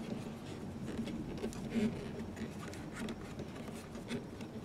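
Flat-blade screwdriver turning the screw of a worm-drive hose clamp as it tightens onto the hose, giving irregular small clicks and scrapes.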